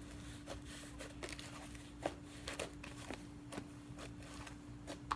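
Slime being mixed by hand: faint scattered sticky clicks and crackles, over a steady low hum.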